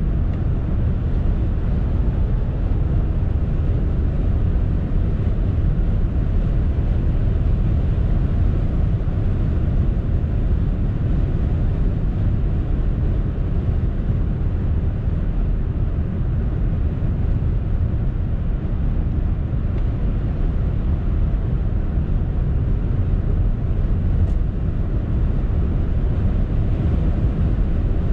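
Cabin noise of a Toyota Mirai 2 hydrogen fuel-cell car at motorway speed, around 135 to 160 km/h: a steady low rumble of tyre and wind noise.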